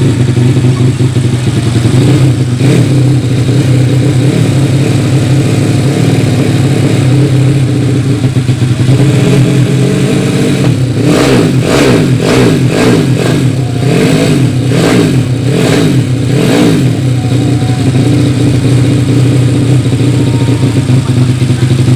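Yamaha Vega ZR's four-stroke engine, swapped to a Mio cylinder at about 193cc, running steadily, then revved in about ten quick throttle blips a little after halfway before settling back to a steady run. The blips test the carburettor jetting, set at pilot jet 42 and main jet 145.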